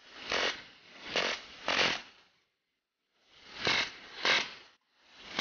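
Fully automatic GSMG pneumatic BB machine gun firing steel BBs in rapid rattling bursts, about six short bursts with a brief pause about halfway through.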